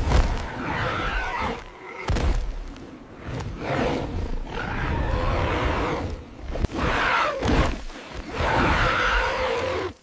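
Roaring cries given to a giant terror bird caught in a rope net: about five harsh, drawn-out roars in a row, each lasting a second or two, with a few thuds between them.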